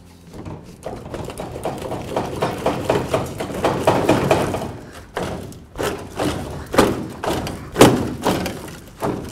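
Rusted steel rear bumper of a 1996 Dodge Ram 1500 being shaken and yanked by hand, rattling and clunking in a run of knocks, with the loudest thump near the end. Its brackets have been cut, and it is held on only by rust.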